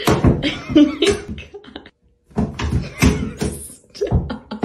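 Two cats fighting, hissing and growling in short bursts as they swat at each other, with a brief pause about two seconds in.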